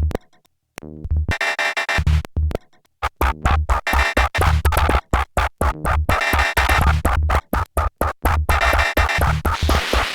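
Harsh electronic synthesizer music: noisy, stuttering sounds chopped into rapid on-off fragments over a deep bass, with abrupt stops and restarts, including a brief drop-out about half a second in and another just before three seconds.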